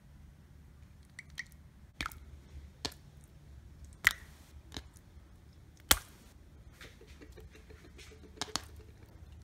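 Watery, jiggly putty pressed and poked with the fingers, giving scattered small wet clicks and pops; the two sharpest come about four and six seconds in.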